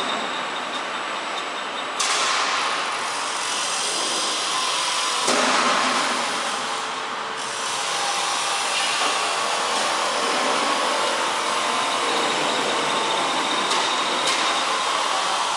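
C/Z purlin roll forming machine running: its chain-driven forming rolls turning with a steady mechanical noise. The noise jumps up suddenly about two seconds in and again about five seconds in.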